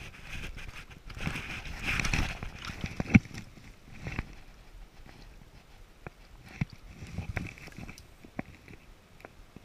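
Close rustling and scattered clicks from hands and sleeves handling a fish in a landing net while unhooking it. The rustling is loudest in the first couple of seconds, with one sharp click about three seconds in.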